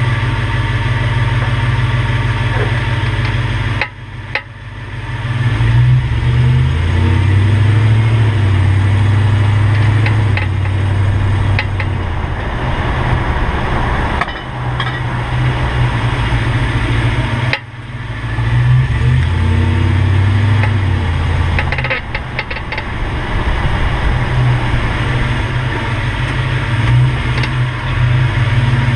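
2005 Toyota Tundra pickup running, its engine note steady with a few shifts in pitch, and a few short clicks heard now and then from underneath.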